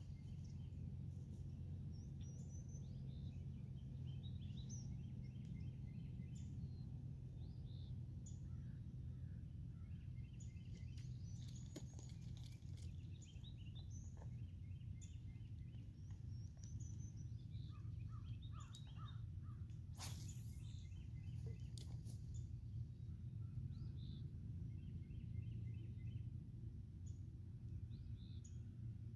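Small birds chirping and trilling in short repeated phrases over a steady low background rumble, with one brief sharp sound about twenty seconds in.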